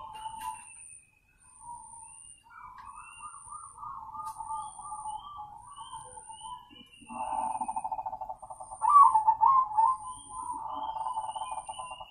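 Crossbred zebra doves (perkutut) cooing: long rolling, trilled coos one after another, the loudest about nine seconds in. A faint high-pitched peep repeats about once a second behind them.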